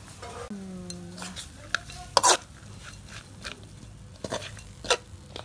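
Metal spatula scraping and knocking against a metal wok as chicken stir-fry with basil is tossed. There are a few sharp clanks, the loudest about two seconds in.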